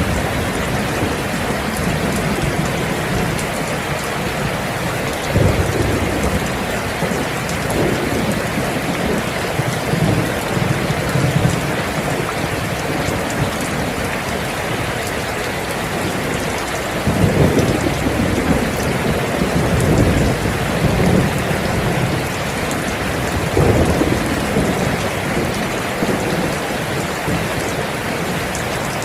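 Steady rain falling, with low rolling thunder rumbles that swell up about five times.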